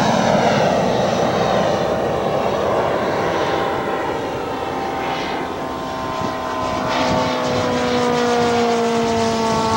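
Propeller engine of a radio-controlled scale model Corsair running in flight as it passes by. Its pitch falls slowly over the last few seconds.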